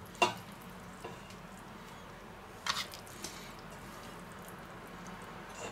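A few soft, wet squishes and light knocks as thick meat ragù is ladled onto tagliatelle on a ceramic plate, the sharpest about a quarter-second in and another about two and a half seconds in, over a quiet background.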